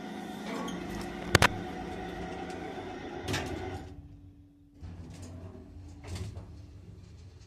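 Lift car's automatic sliding doors running shut, with a sharp double clack about a second and a half in and a knock near three and a half seconds. After a short pause the car sets off downward with a steady low hum from the drive and a single click about six seconds in.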